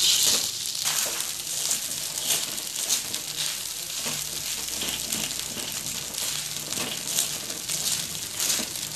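Fried rice sizzling in a hot pan while a spatula stirs and scrapes it, with frequent short scraping and tapping strokes over a steady sizzle.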